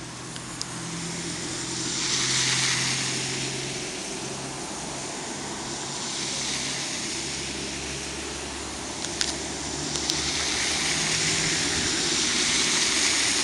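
Road traffic noise: a steady engine hum under tyre and road hiss that swells and fades three times, with a few faint clicks.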